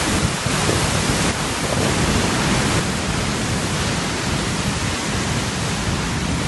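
Lower Düden Waterfall plunging into the sea: a loud, steady rush of falling water, even and unbroken.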